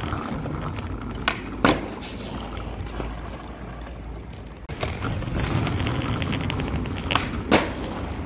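Skateboard wheels rolling on concrete with a steady rumble, broken by sharp clacks of the board hitting the concrete: the loudest come about one and a half seconds in and near the end, with a few lighter knocks between.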